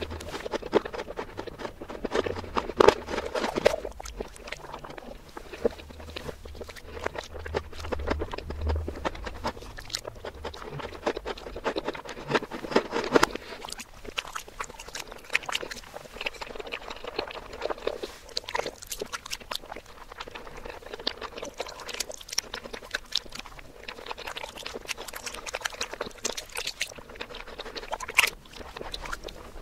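Close-miked eating sounds played in reverse: wet chewing, lip smacks and mouth clicks of soft chocolate pudding and whipped cream, in a dense, irregular run of small clicks.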